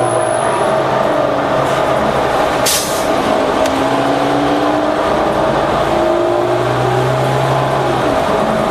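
2011 New Flyer Xcelsior XD40 bus's Cummins ISL9 diesel engine and drivetrain running steadily under way, with a whine rising slowly in pitch through the middle. A brief hiss a little under three seconds in.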